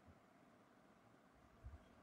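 Near silence: room tone, with one faint low thump near the end.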